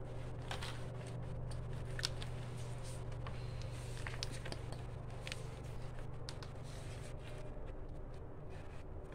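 Scattered light clicks and rustles of hands handling filled plastic bottles while tying string around their necks, over a steady low hum.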